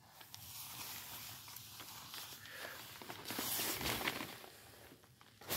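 Quiet handling noise: faint rustling and light taps as hands move over the guitar and its cloth cover, a little louder about three to four seconds in.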